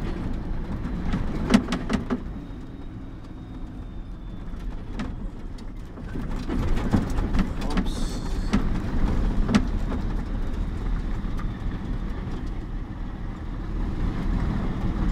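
Mercedes-Benz mixer truck's diesel engine and road noise drumming inside the cab while driving, with scattered knocks and rattles. The drone drops for a few seconds, then grows louder again about halfway through.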